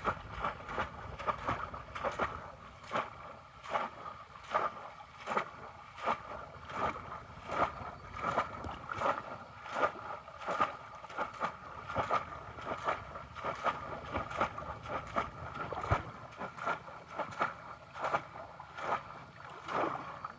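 Repeated splashes of water as bamboo polo fish traps are plunged down into shallow muddy water, one stroke after another, roughly twice a second, with a steady hum underneath.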